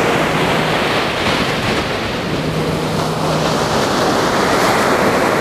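Ocean surf breaking and washing up a sandy beach in a steady rush.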